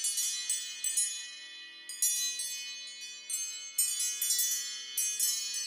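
An Apple ringtone playing: a high, bell-like chiming melody of quick struck notes that ring on. There is a short lull just before two seconds in, then the chiming pattern starts again.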